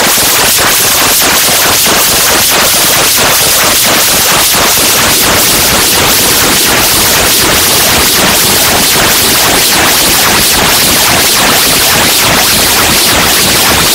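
Loud, steady static-like hiss with dense crackling pulses several times a second, from a noise-based experimental soundtrack.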